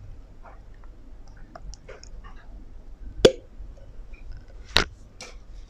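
Two sharp plastic clicks about a second and a half apart, the first the louder, from a sauce bottle's flip-top cap being snapped open, with faint handling rustles between.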